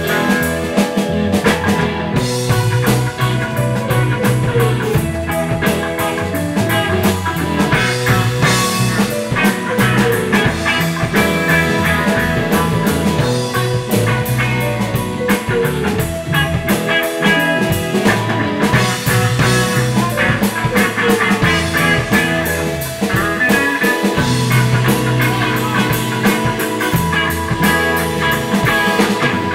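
Live band playing an instrumental funk-rock jam: drum kit keeping a steady beat under electric bass and electric guitar.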